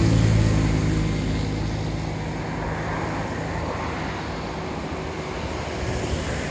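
A large bus's diesel engine passing: it is loudest at the start and fades slowly as the bus moves away.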